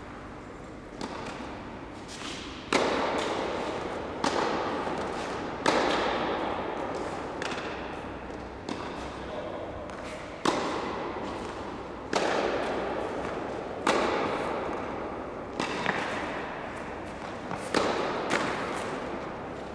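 Tennis rally: a tennis ball struck by rackets at a steady pace, a sharp hit about every one and a half to two seconds, with fainter ball bounces between. Each hit rings on in a long echo off the walls of the indoor tennis hall.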